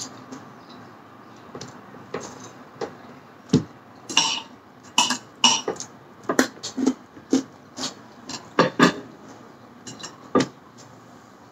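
Eating sounds up close: irregular short clicks and knocks of a fork against a plate, mixed with chewing and lip smacks. They come thickest through the middle.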